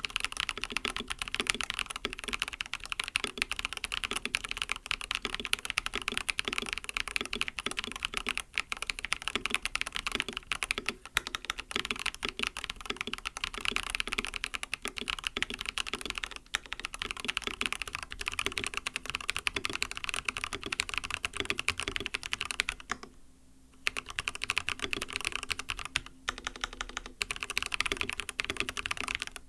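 Continuous fast typing on a mechanical keyboard with lubed MMD Coral linear switches, silicone plate foam and a dark grey mStone Groove T case: dense, muted keystroke clacks, with a short pause about 23 seconds in.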